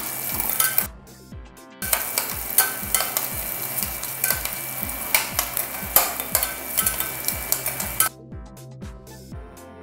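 Chopped shallots sizzling in hot oil in a stainless steel pressure cooker, with a metal slotted spoon scraping and clinking against the pot as they are stirred. The sizzling drops away briefly about a second in and again near the end, leaving soft background music with a steady beat.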